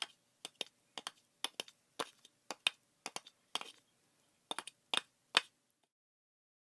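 A series of sharp clicks at an uneven pace, many of them in quick pairs, stopping a little over five seconds in.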